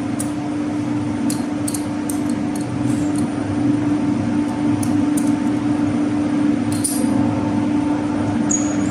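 Scattered light metallic clinks and taps as a lathe tool bit is changed, over a steady low machinery hum.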